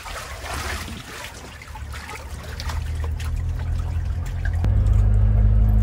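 Water sloshing and splashing in a tarp-lined pickup bed pool as the truck drives, under the truck's low engine and exhaust drone, which grows and jumps up sharply about four and a half seconds in as the truck pulls away.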